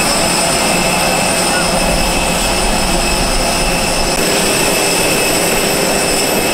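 Parked Citilink Airbus A320 jet airliner's turbines running with a loud, steady, high-pitched whine, with a crowd's voices under it.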